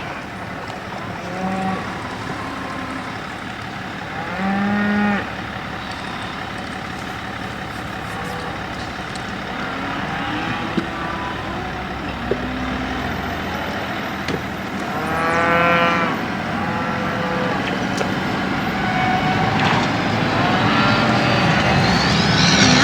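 A herd of cattle mooing repeatedly, about seven calls with the loudest near 5 and 16 seconds in, over the steady road noise of a passing car.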